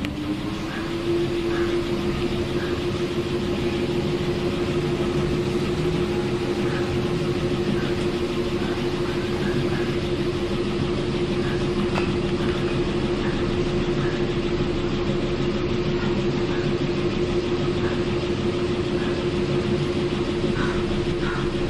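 Ceiling fan running at speed on extended downrods. A steady hum rises in pitch over the first second, then holds over a constant rushing noise, and cuts off at the end.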